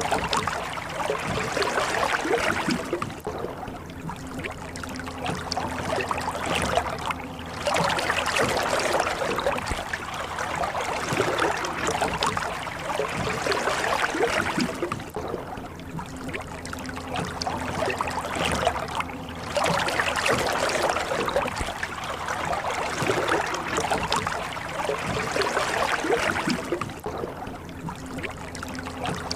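Oars dipping and pulling through water while a boat is rowed: splashing and trickling water that swells and eases in long surges every several seconds.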